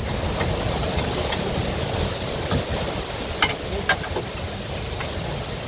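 Steady rushing noise close to the microphone, with a few sharp clicks about three and a half and four seconds in.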